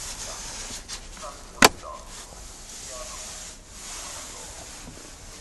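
Light handling and rubbing noises with one sharp click about a second and a half in.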